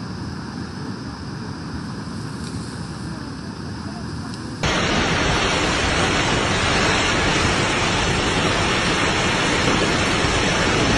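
Rushing floodwater, a steady noise; a little under halfway through it cuts abruptly to a louder, brighter rush.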